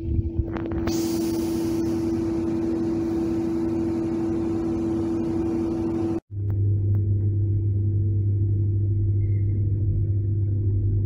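Cabin sound of a moving ER9M electric multiple-unit train: a steady hum over the rumble of the running train. The sound cuts out for a split second about six seconds in, and after that the hum sits much lower in pitch.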